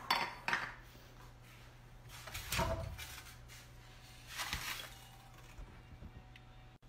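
A few light knocks, then two brief scraping, knocking handling noises about two and a half and four and a half seconds in, as a glass bowl and a foil-lined baking pan are moved about on a kitchen counter. A faint steady low hum runs underneath.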